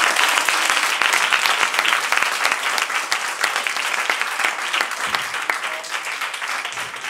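Audience applauding, a dense patter of many hands clapping that gradually thins and fades.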